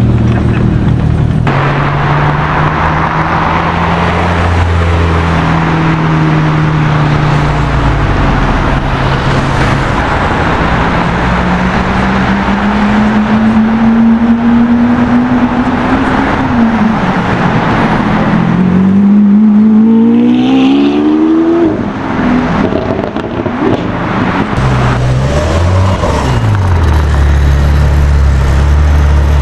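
A run of supercar engines revving and accelerating hard, one car after another. In the middle, a Lamborghini Aventador's V12 climbs in pitch through the gears, with sudden drops at the shifts. Near the end a Ferrari 812's V12 runs at a deep, low pitch with short blips of the throttle.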